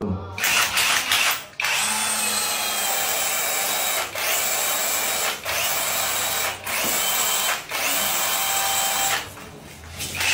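APR AP17 cordless drill's motor whirring at high speed, run in six bursts of one to two seconds. The trigger is let go briefly between bursts.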